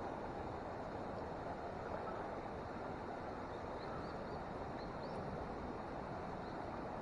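Steady rush of water in a small mountain stream, with a small bird giving a few faint, short rising chirps in the middle.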